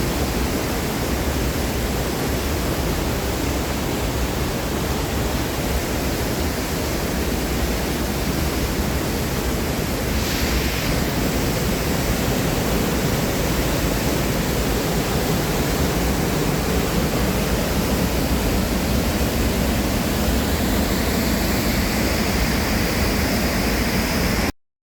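Steady rushing of a waterfall, loud and unbroken, cutting off suddenly near the end.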